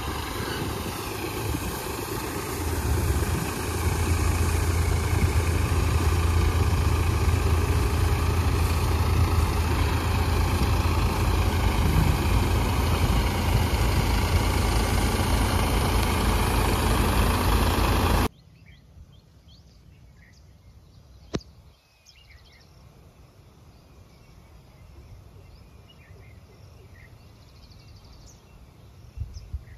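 Eicher 557 tractor-mounted Dasmesh 912 combine harvester running steadily while unloading grain into a trolley; its engine and threshing machinery give a loud, even hum that grows louder about three seconds in. About two-thirds of the way through it cuts off abruptly, leaving quiet outdoor air with faint bird chirps and a single click.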